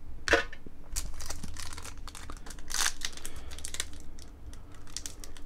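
Foil trading-card booster pack wrapper crinkling and crackling in the hands as it is torn open. The pack is stubborn to open, giving a long run of irregular crinkles with a louder burst of crackling about three seconds in.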